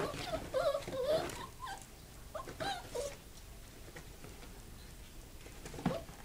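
Chihuahua making short, wavering whines in the first second and a half and again about three seconds in, while it scrabbles over a pile of clothes in a plastic laundry basket. A sharp thump comes near the end.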